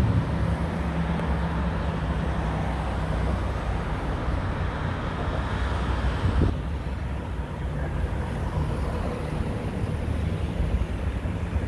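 Road traffic: cars passing below, their engines rumbling and tyres hissing in a steady wash of noise. About six and a half seconds in, the hiss drops suddenly.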